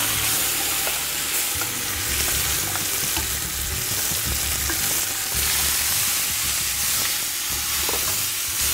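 Chopped beef sizzling hard in very hot bacon fat in a cast-iron cauldron as it is tipped in and stirred with a spatula: a dense, steady frying hiss with scraping of the spatula against the pot.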